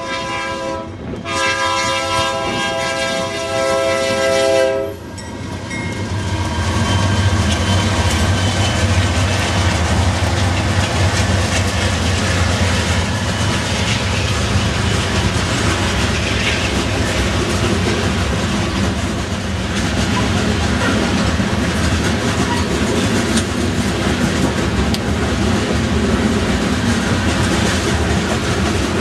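Freight train's diesel locomotives sound their air horn in two blasts, a short one and then a longer one that stops about five seconds in. The locomotives then pass close by with a heavy, steady engine sound, giving way to the rolling wheel noise and clickety-clack of covered hopper cars on the rails.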